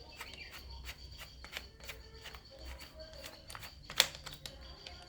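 Scattered small clicks and taps from handling the electric screwdriver and fitting a screwdriver bit, with one sharp click about four seconds in; the motor is not running.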